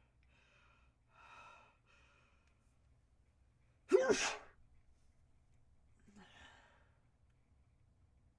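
A person's harsh sneeze, loud and sudden about four seconds in. Quieter breaths come before it and one after.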